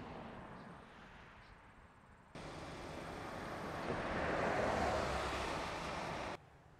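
Outdoor wind noise for the first two seconds, then a louder rushing noise of highway traffic that swells and cuts off abruptly near the end.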